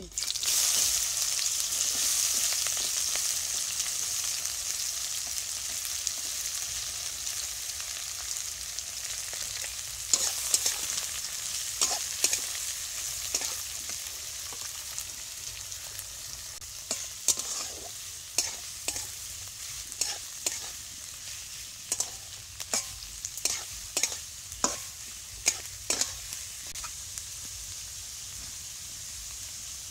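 Chopped onions dropped into hot oil in a kadai set off a loud sizzle right at the start, which settles into a steady frying hiss that slowly fades. From about ten seconds in, a metal spatula scrapes and knocks against the pan as the onions are stirred, most often in the second half.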